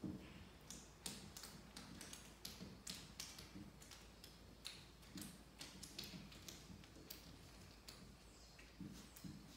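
Faint, irregular light taps and clicks from hand work along the glass and wooden frame of a window sash being reglazed, about one or two a second.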